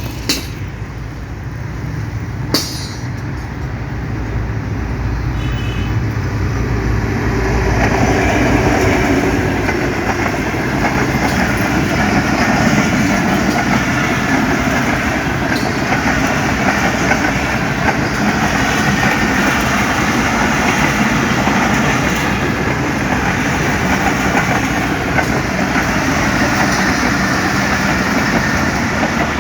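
Express passenger train passing at speed. A low rumble builds over the first several seconds into a loud, steady rush and rattle of wheels on the rails as the coaches run by. Two sharp clicks come in the first few seconds.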